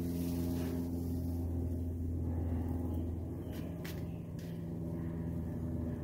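Steady low mechanical hum, with a few light clicks a little past the middle.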